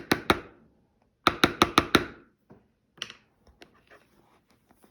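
Spoon knocking against the mixing bowl while stirring colouring into the slime mixture: a quick run of clacks at the start, a faster run of about six a second and a half in, then a few scattered taps.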